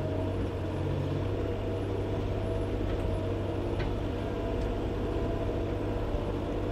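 Komatsu PW30 wheeled excavator's diesel engine running at a steady pitch as the machine drives off under its hydrostatic drive, a constant low drone.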